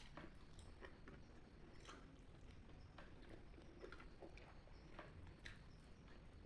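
Faint chewing while eating rice with cassava leaves, with small irregular mouth clicks.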